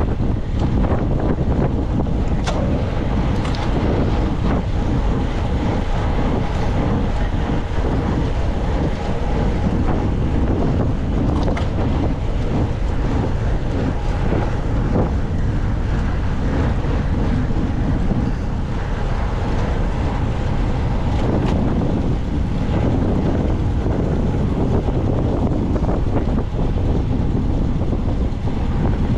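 Steady wind noise buffeting the microphone while riding at bicycle-racing speed, with a few light clicks.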